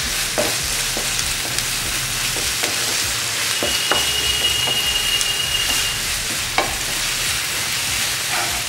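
Onions and a ground onion–red chilli paste sizzling in hot oil in a nonstick frying pan as a spatula stirs them, with scattered scrapes and taps of the spatula on the pan.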